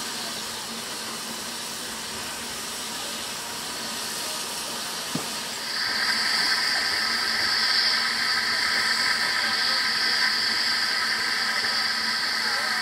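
Narrow-gauge steam locomotive hissing as it blows off steam. About six seconds in, a long, steady steam-whistle blast starts and is held until the end.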